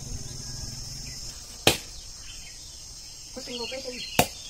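Two sharp cracks about two and a half seconds apart, a coconut being struck against a stone to break it open. Insects shrill steadily in the background.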